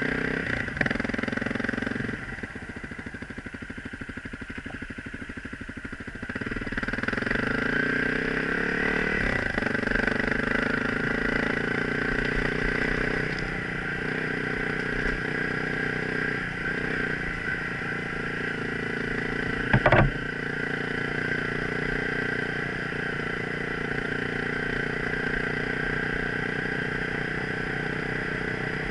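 Motorcycle engine running while riding. It eases off and goes quieter for about four seconds, then picks up again. One sharp knock comes about two-thirds of the way through.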